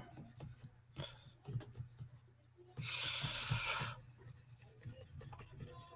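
Stylus scratching and tapping on a graphics tablet during digital sketching: a few light ticks, then one longer scratchy stroke about three seconds in.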